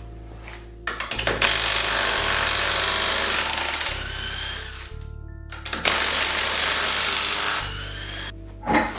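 Cordless impact wrench hammering on a car wheel's lug nuts in two long bursts, with a brief stop about five seconds in.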